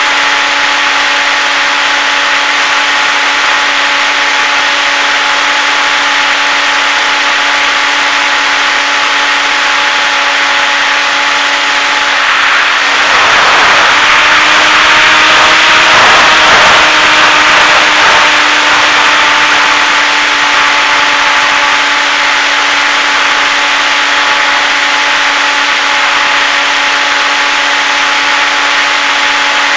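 Electric motor and propeller of a HobbyZone Super Cub RC plane running at a steady pitch, heard from on board with airflow hissing over the microphone. About halfway through a louder rush of wind swells for several seconds as the plane banks down steeply. The motor tone blurs, then comes back slightly higher before it settles.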